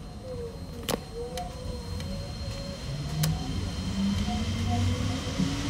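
Osaka Monorail 2000 series train heard from on board, accelerating: a motor whine rises steadily in pitch from about three seconds in over a low running rumble, after a few sharp clicks in the first seconds.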